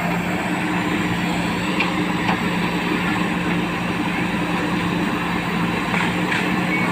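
JCB backhoe loader's diesel engine running steadily, with a constant low drone.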